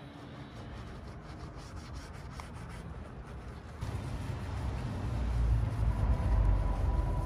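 Soft detailing brush scrubbing foam-covered car trim, a wet scratchy rubbing of bristles on soapy panels. From about four seconds in a low rumble rises underneath and grows louder.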